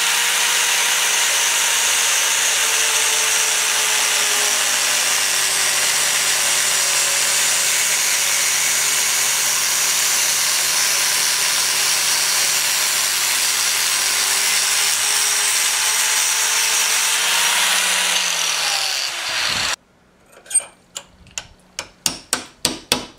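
Angle grinder cutting the end off a rifle cartridge case held in a vise, running steadily, its pitch sagging slightly under load. Near the end it cuts off suddenly, and a punch is tapped repeatedly with a hammer, several light knocks a second, to drive the bullet out of the cut case.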